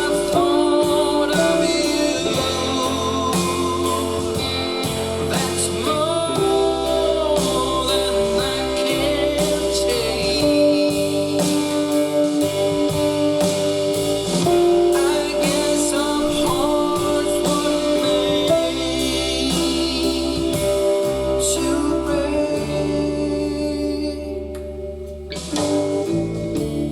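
Instrumental break in a slow blues-rock song: guitar over bass and drums, played back through a Harman/Kardon HK 3250 amplifier. The level dips briefly near the end.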